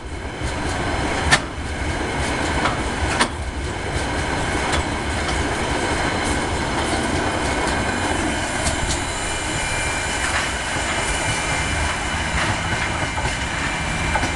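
Empty container flat wagons and spine wagons of a freight train rolling past on steel wheels, a steady rumbling rattle with a few sharp knocks about one and three seconds in.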